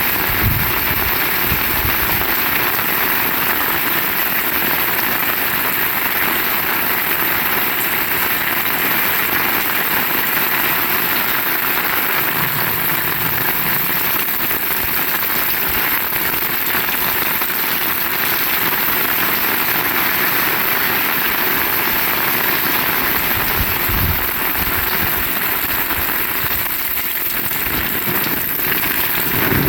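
Heavy rain falling steadily, a dense even hiss, with a few brief low thumps.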